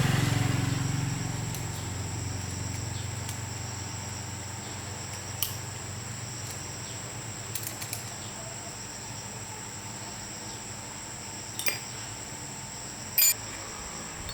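A motor's low hum fades away over the first two seconds, leaving a steady high-pitched whine with a few light clicks.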